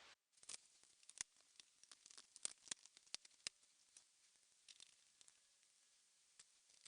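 Faint, scattered small clicks and taps of laptop parts and screws being handled and fitted back together, busiest in the first few seconds and sparser after.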